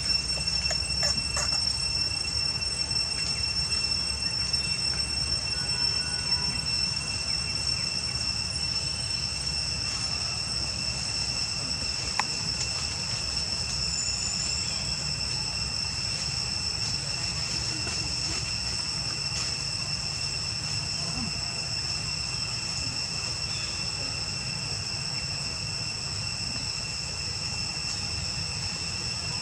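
Insects droning in an unbroken chorus of steady high-pitched tones, over a low rumble.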